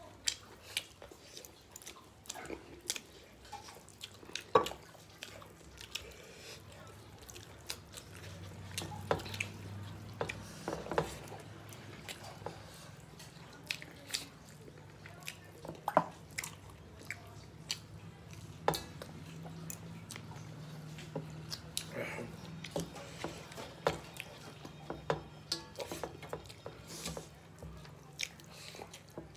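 Two people eating rice and chicken curry by hand: chewing and lip-smacking, with scattered short clicks of fingers and food against steel plates.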